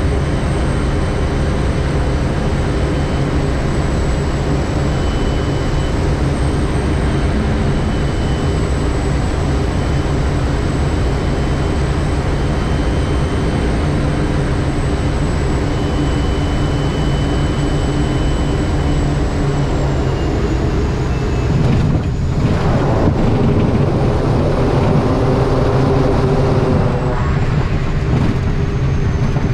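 Quest Kodiak's single turboprop engine and propeller running steadily on final approach, with a high turbine whine and rushing air. The whine falls and later rises again, and about three-quarters of the way through the sound turns rougher and louder as the wheels touch down and roll out on the grass and dirt strip.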